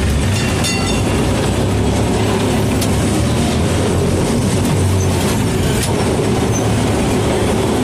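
Electric tram running, heard from inside the driver's cab: a steady rumble of steel wheels on the rails under a steady low hum, with a few faint clicks.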